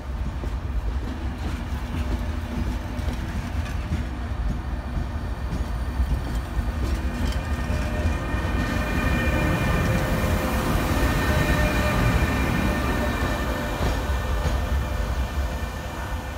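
Departing RFI Archimede track-measurement train passing close by: a steady rumble of wheels on rail with scattered clicks from the rail joints. It grows louder with a high, steady whine about halfway through as the electric power car goes past, then fades near the end as the train pulls away.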